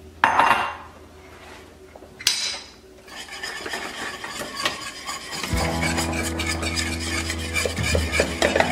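Wire whisk beating egg yolks into hot custard in a stainless steel saucepan: rapid scraping and clinking strokes against the metal pan that grow louder after about three seconds. Two short scraping swishes come first.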